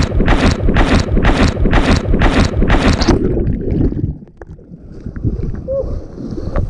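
Water splashing hard in a regular rhythm, about two or three splashes a second. About three seconds in it breaks off, giving way to a quieter, muffled wash of water with a few small knocks.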